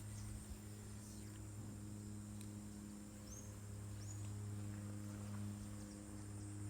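A steady low hum with several even tones, under a high, steady insect drone and a few short high chirps.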